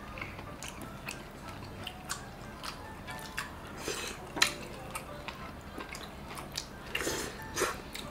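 Eating sounds: chopsticks clicking and scraping against a pan and small plates, with some chewing. The clicks come singly and irregularly, the sharpest about halfway through and a few close together near the end.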